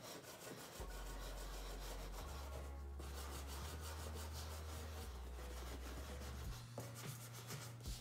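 Chalk pastel sticks rubbed back and forth across paper, a soft, continuous scratchy rasp as the leaf shapes are filled in with white. Underneath, a low steady hum begins about a second in and shifts to a new pitch every second or so.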